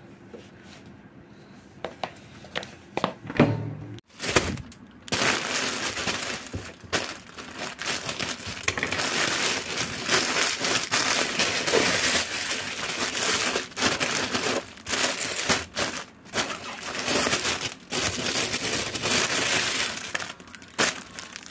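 Grey plastic courier bag crinkling and rustling as hands open it and rummage inside, in long spells with short pauses. It starts about five seconds in, after a few soft handling knocks.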